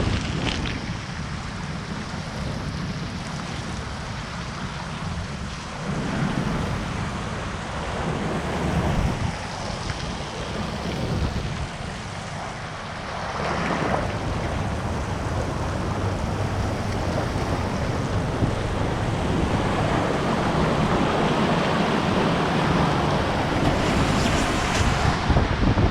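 Water rushing down a water slide with wind buffeting the microphone: a continuous rushing noise that grows louder over the second half.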